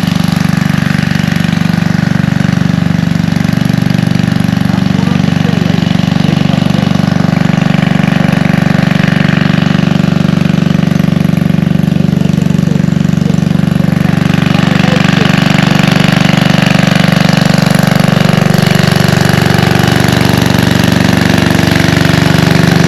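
An engine running steadily at an even speed, loud and unbroken.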